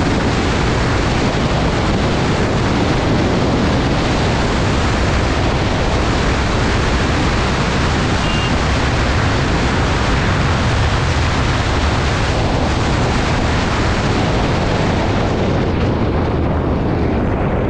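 Steady heavy wind rush on the camera microphone from a Bajaj Pulsar 125 motorcycle ridden flat out near its top speed, drowning out the engine. The hiss softens a little near the end.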